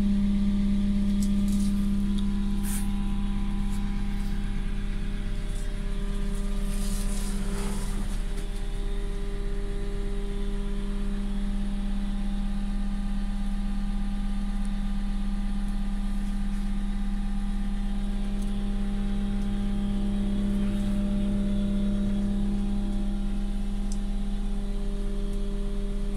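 Cat CW34 pneumatic-tyre roller's diesel engine idling steadily at about 1000 rpm, heard from inside the cab, with an even, unchanging hum.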